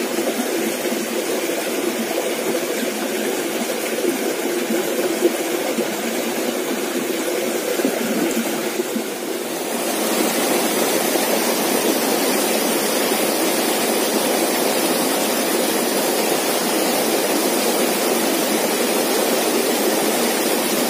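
Shallow rocky stream rushing over stones and small cascades: a steady water rush that grows a little louder and fuller about ten seconds in.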